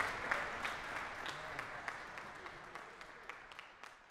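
Concert audience applauding, the applause fading away steadily so that single claps stand out as it thins.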